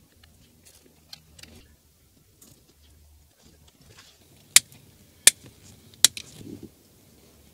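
Small ticks and rustles of hands working a thin USB cable among the wiring and plastic parts under a car's dashboard, then three sharp clicks about two-thirds of a second apart, the loudest sounds, followed by a short low rub.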